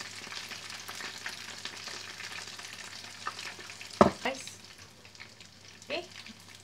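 A spoon works wet seasoning sauce out of a glass bowl onto a plate of fried fish, over a light crackling hiss. About four seconds in, a sharp ringing clink as the glass bowl is set down on the counter, and a smaller knock a couple of seconds later.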